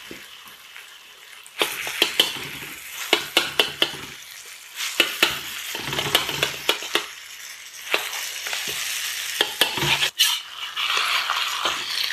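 Doupi sizzling in a hot wok with the gas just turned off, overlaid with clusters of sharp clicks and scrapes as metal utensils cut it into pieces against the wok's bottom and lift them out.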